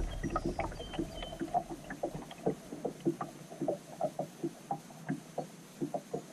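Kayak drifting on calm creek water, with small irregular water plinks and taps, a few each second. A low rumble fades out in the first second.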